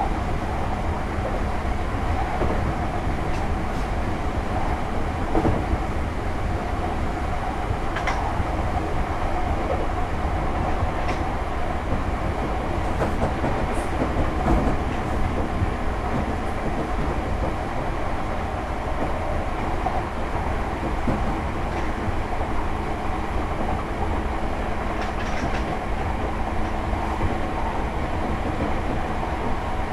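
Class 313 electric multiple unit running steadily, heard from inside its driving motor car. The wheels rumble on the track under a steady hum, with a few short clicks over rail joints.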